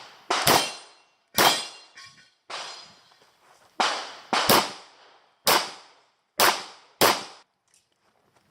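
Pistol shots fired by an IPSC competitor working through a stage: about eight single sharp shots with uneven gaps between them, each with a short echoing tail.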